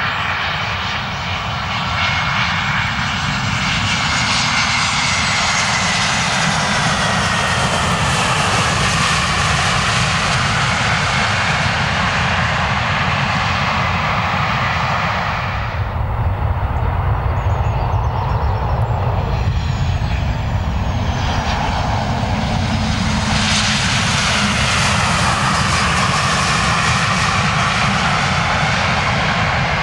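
Airbus A321 airliner's jet engines during landing and rollout: a loud rush of jet noise with a whine that falls in pitch, easing off around halfway. Then a Boeing 737-800 lands with the same rising jet rush and falling whine.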